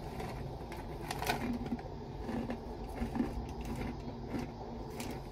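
Plastic snack bag crinkling as it is handled, with irregular sharp crackles over a steady low rumble.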